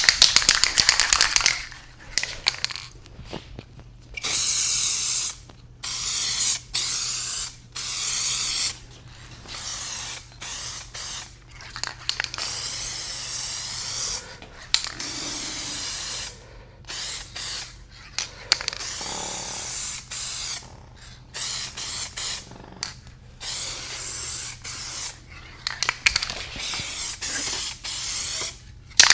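Aerosol spray-paint can hissing in repeated short bursts, about half a second to two seconds each with brief pauses between, as paint is sprayed onto a car door in passes.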